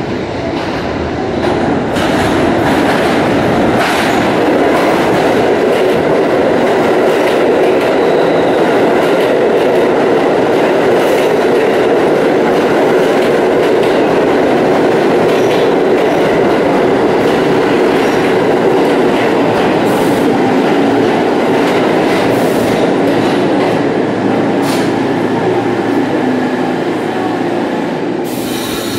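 New York City subway train pulling into the station: a loud, steady rumble of steel wheels on rail with scattered sharp clicks, starting about a second in and easing off near the end as the train slows to a stop.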